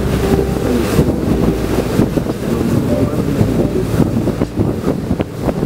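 Wind buffeting the microphone on the deck of a moving tour boat, over the steady rush of the boat through the water.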